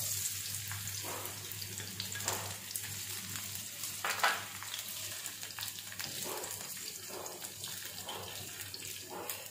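Diced potatoes sizzling in oil in a non-stick frying pan, starting as they are tipped in. A slotted plastic spatula scrapes and knocks against the pan now and then as they are stirred.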